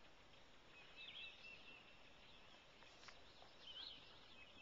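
Near silence: quiet pond-side ambience with a bird singing faintly, short chirping phrases about a second in and again near the end, and one faint click about three seconds in.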